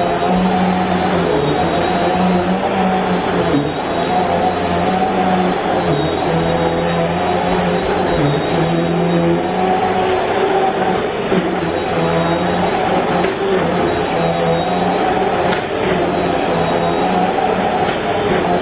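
Bissell PowerForce Helix Turbo upright vacuum cleaner running steadily during rug cleaning, with a constant high whine over a low motor hum that swells and dips every second or so.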